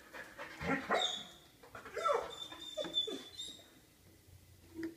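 Dog whimpering and whining in several short calls that fall in pitch, with a thin high whine running alongside, then a quieter stretch.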